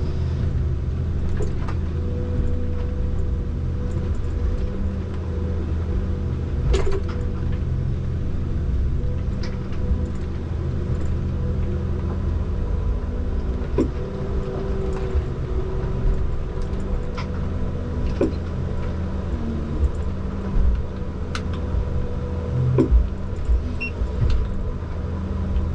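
Komatsu 901 forestry harvester heard from inside its cab: the diesel engine runs steadily under load with a constant hydraulic whine, broken by scattered sharp knocks as the C93 harvester head grips and works the trees.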